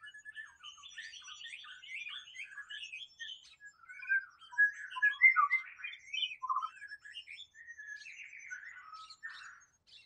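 Male white-rumped shama singing a rapid, varied song of whistles, trills and chattering notes, loudest around the middle.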